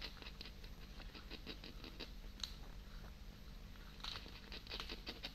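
Ragdoll cat chewing raw quail: quick runs of small crunching clicks, about five a second, that pause for a couple of seconds in the middle.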